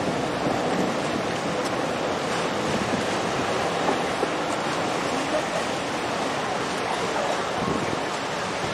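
Steady rushing wash of choppy river water, stirred by a passing boat's wake, with some wind.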